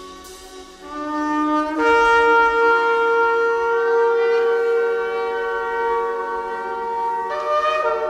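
Shofar being blown: a short lower note about a second in jumps up to a long, steady higher note held for about five seconds. Near the end the pitch shifts and wavers.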